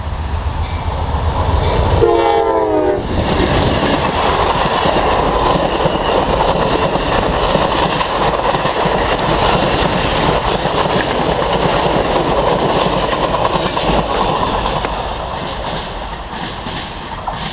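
Amtrak passenger train passing close by at speed. The GE Genesis diesel locomotive rumbles up and sounds a short horn blast about two seconds in. Then the wheels of the passenger cars rush and clatter over the rail joints, fading near the end as the train moves away.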